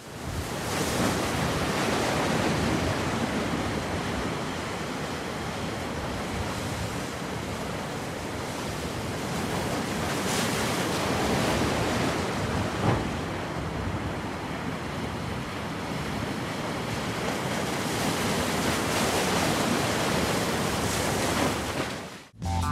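Churning, swirling water of whirlpools in a fast current rushing steadily, with wind buffeting the microphone.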